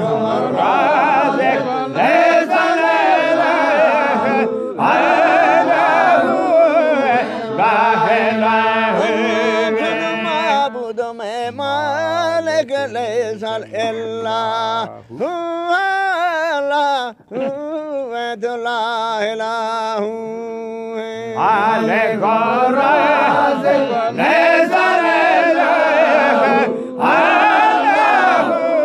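Zikri chogan: men singing a devotional chant together over a steady held note. About halfway through, a single voice sings alone with a strongly wavering pitch, then the group comes back in.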